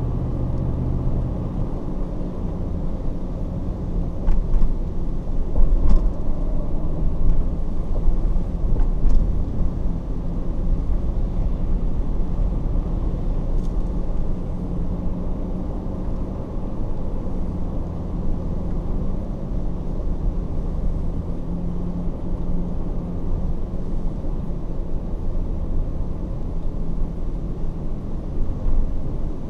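A car driving, heard from inside the cab: a steady low rumble of engine and road noise, with a few louder bumps between about four and nine seconds in.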